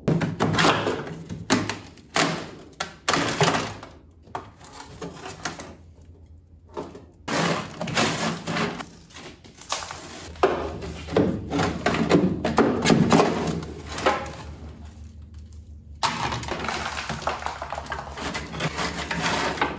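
Frozen sound deadener being pried and scraped off a Datsun 240Z's steel floor pan with a scraper, breaking loose in chunks after a dry-ice and alcohol soak. The result is an irregular run of scrapes, cracks and knocks against the metal.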